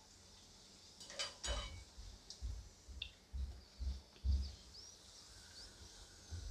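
Wire mesh skimmer clinking against a steel frying pan twice about a second in, then several soft low bumps as it presses puris down in hot oil so they puff up. A faint sizzle of frying oil runs underneath.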